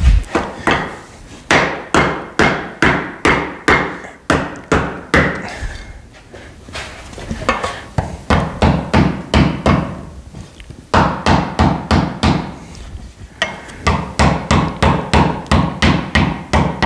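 Hand hammer repeatedly striking a metal tube laid on a sandbag, bending it into shape. The sharp, ringing blows come about two to three a second in several runs, with brief pauses between them.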